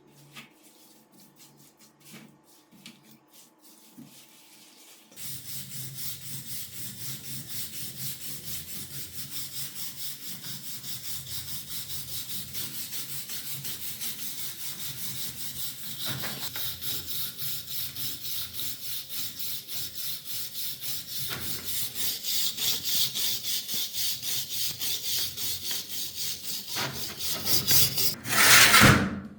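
Rapid, even back-and-forth abrasive strokes, hand rubbing a part with an abrasive, starting after a few faint clicks and gradually getting louder. A short, loud hiss comes near the end.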